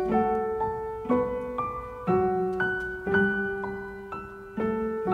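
Gentle background piano music: a slow melody over chords that change about once a second.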